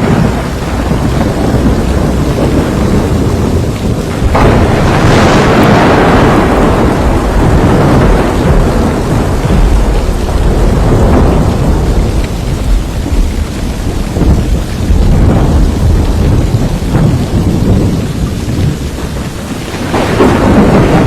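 Heavy rain in a thunderstorm, with thunder rolling several times. The loudest peal comes on suddenly about four seconds in and rumbles away over several seconds. Further rolls come near the middle and near the end.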